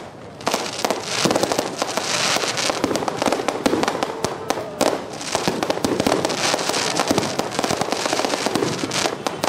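Aerial fireworks display: shells bursting in a rapid, near-continuous barrage of bangs and crackling, after a brief lull at the start.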